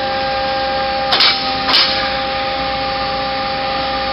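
Mazak QT20HP CNC lathe running with a steady two-note mechanical hum. Two sharp clunks about a second in, half a second apart, as the part-catcher arm beside the chuck swings out.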